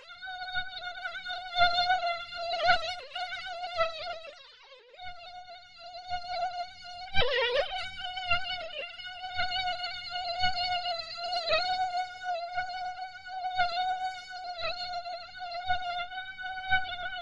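Mosquito whining in flight: a steady high buzz that wavers slightly. It fades away about a third of the way in, then returns, swooping lower and louder briefly just before halfway as if passing close.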